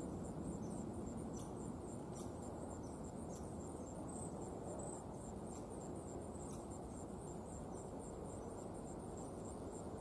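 A steady high-pitched insect trill, an even run of rapid pulses that never breaks, over faint outdoor background noise, with a few soft clicks.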